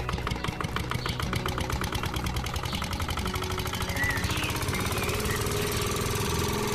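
Miniature single-cylinder engine belt-driving a toy chaff cutter, running with a rapid, even chugging.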